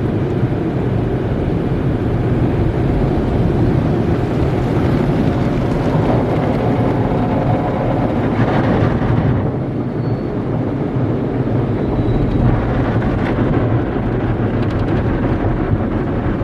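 Tunnel car wash equipment working over the car, heard from inside the cabin: a steady rush of water spray and cloth brushes on the body over a low mechanical rumble, easing briefly about ten seconds in.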